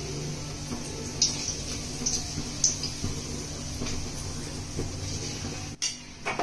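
Sweet gulgulla fritters deep-frying in hot oil: a steady sizzle with a few sharp crackles and pops.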